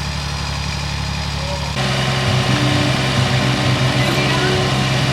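Engine idling with a steady low hum. About two seconds in, the sound cuts abruptly to something louder whose low notes step between pitches, like background music starting over the machine noise.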